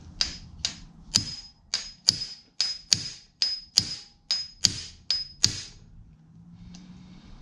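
Hammer striking a hand impact driver about a dozen times, roughly two blows a second, each with a sharp metallic ring, to break loose a stuck fastener on an engine's cylinder head. The blows stop a little before the end.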